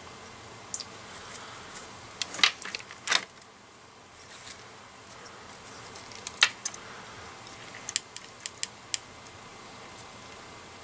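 Scattered light clicks and taps from handling a soldering iron and solder wire at a circuit board, over a faint steady hiss. The sharpest clicks come a couple of seconds in and again past the middle.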